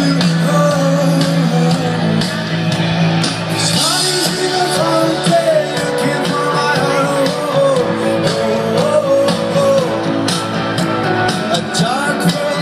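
Live rock band playing, with a voice singing over it.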